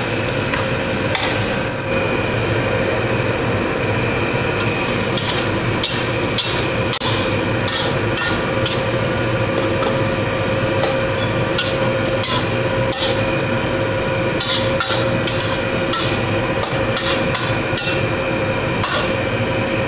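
Metal spatula scraping and clanking against a steel wok as sliced bamboo shoots are stir-fried, in quick irregular knocks, over a steady hum.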